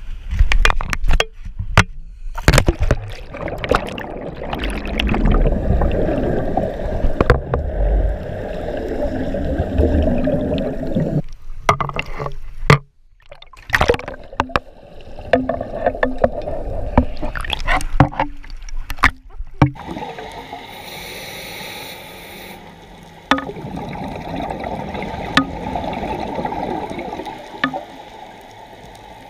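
Water noise picked up by a camera in a waterproof housing: sharp knocks and splashing water during a backward-roll entry from a dive boat, then a steadier, muffled rushing once the camera is underwater.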